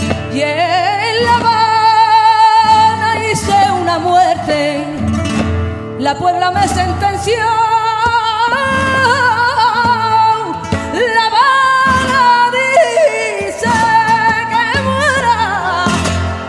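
Flamenco cante por soleá: a woman sings long, wavering, ornamented phrases over flamenco guitar accompaniment, with a short break about six seconds in.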